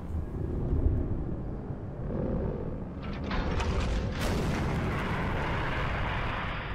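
Animated battle sound effects: a deep, steady rumble of explosions and booms, with a burst of crackling between about three and four seconds in.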